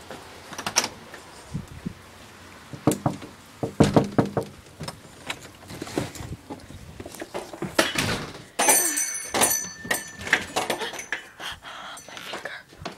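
A door being handled: a string of knocks and thuds, with a louder, denser stretch of scraping and high squeaking about nine seconds in.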